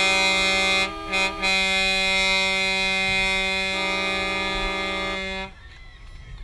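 A loud horn sounds one long blast in a chord of several notes, breaking off briefly twice about a second in, with a second horn overlapping for a while in the latter half. It cuts off suddenly near the end.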